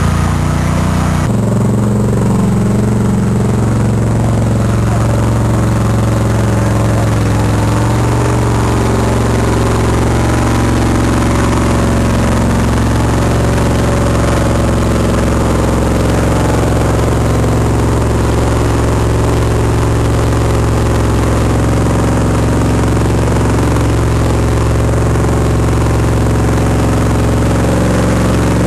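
Loud 4x4 truck engine running steadily, its sound changing abruptly about a second in.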